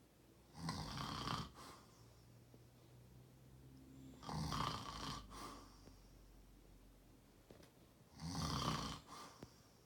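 Someone snoring: three snores about four seconds apart, each lasting about a second.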